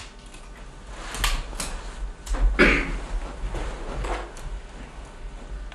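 Handling noise of a leather jacket being pulled off and handled: a run of short rustles and soft knocks, the loudest about two and a half seconds in, over a steady low hum.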